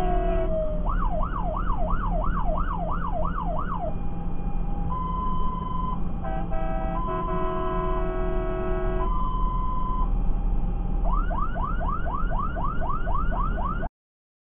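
Fire engine's electronic siren on an emergency run, switching between a fast rising-and-falling yelp of about three to four sweeps a second and a two-tone hi-lo alternation about once a second, over the engine and road noise. The sound cuts off abruptly near the end.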